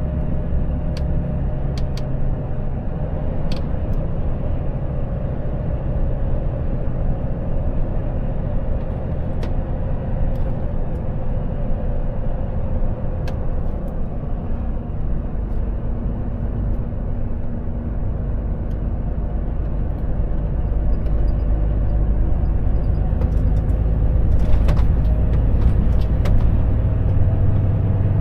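Volvo FH truck's diesel engine running with a steady low rumble, heard from inside the cab. The engine note rises over the last few seconds, and a few sharp clicks and rattles come through.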